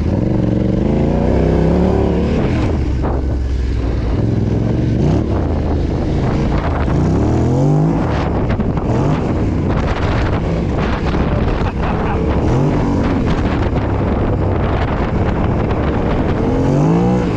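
Yamaha Ténéré 700's parallel-twin engine being ridden hard off-road, its pitch rising and falling again and again as the throttle is opened and shut, with wind buffeting the microphone.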